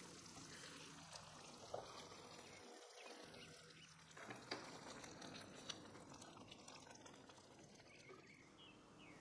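Faint bubbling and popping of thick curry sauce simmering in a pan, with a few soft clicks of a spatula stirring through it in the middle.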